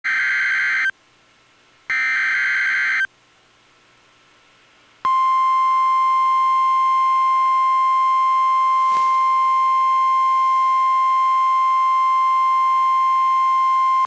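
NOAA Weather Radio Emergency Alert System signal for a tornado warning: two roughly one-second bursts of SAME header data tones, then after a short gap the weather radio's steady single-pitched warning alarm tone, which starts about five seconds in and holds to the end.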